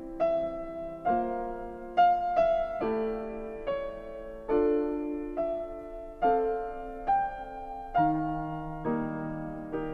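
Background piano music: a slow melody of single notes and chords, each struck and fading.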